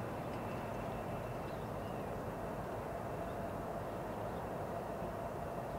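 Distant CN freight diesel locomotives running as they approach slowly, a steady drone with no breaks.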